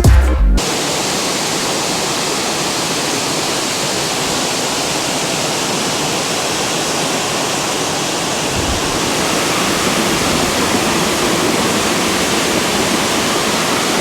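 Waterfall rushing: a steady, dense hiss of falling water, growing slightly louder about nine seconds in.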